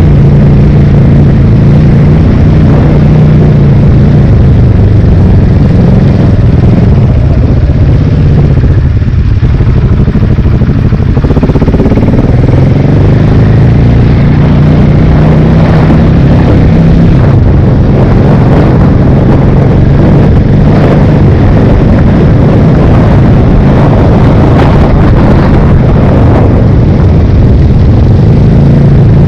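Big single-cylinder enduro motorcycle engine heard loud from on board, running under steady throttle along a dirt track. The engine note eases off about nine seconds in, then picks up again with the pitch rising and falling as the throttle changes.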